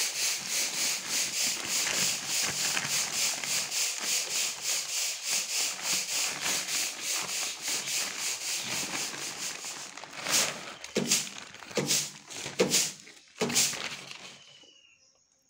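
Plastic courier polybag being rubbed and crinkled by hands, a steady rustle pulsing in a quick regular rhythm, then four or five louder separate crackles near the end before the rustling dies away.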